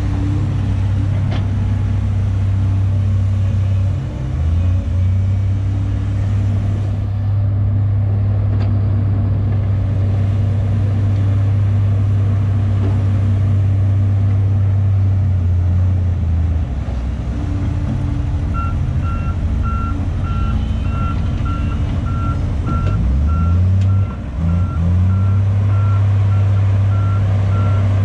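Heavy diesel engine of a Volvo crawler excavator running steadily at working revs, the revs dipping and climbing again a few times. About two-thirds of the way through, a reversing alarm starts up and beeps evenly, about one and a half beeps a second.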